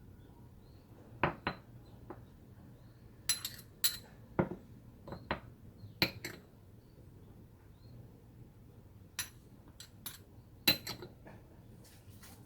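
Kitchen utensils clinking against dishes: about a dozen separate sharp clinks, some with a brief metallic or glassy ring, spread irregularly.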